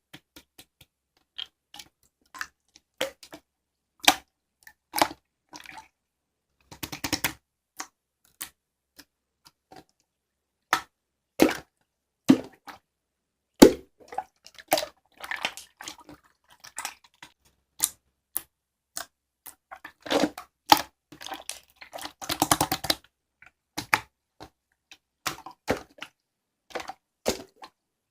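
Slime being pressed and played with by hand: irregular sticky clicks and small pops, with denser crackling spells about seven seconds and twenty-two seconds in.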